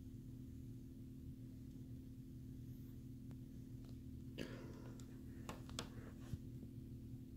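A steady low hum, with a few faint clicks and a brief rustle between about four and six seconds in.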